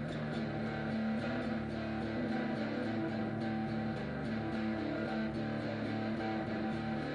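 Guitar music: sustained plucked and strummed guitar tones over a low held bass, with faint regular ticks running through it.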